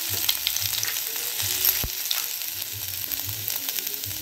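Cumin seeds frying in hot oil in a kadai, a steady sizzling hiss with scattered small crackles as the seeds pop.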